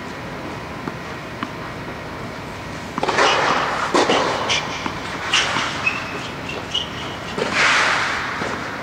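Footsteps scuffing and scraping on a clay tennis court close by, starting about three seconds in as a series of short crunches, with a longer scrape near the end, over a steady background noise.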